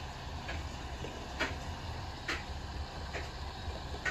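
Metal spoon clicking and scraping against a glass jar of minced garlic, about one light click a second, the last near the end the loudest, over a steady low hum.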